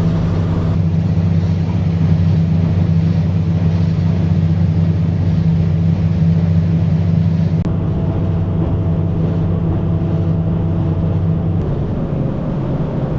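Boat motor running steadily under way, its pitch dropping slightly near the end as it is throttled back.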